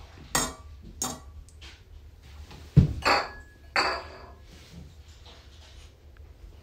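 Kitchenware being handled: a wooden spoon and a stainless steel mixing bowl knocking and scraping on a wooden cutting board in several short separate sounds, the loudest a heavy thud just under three seconds in.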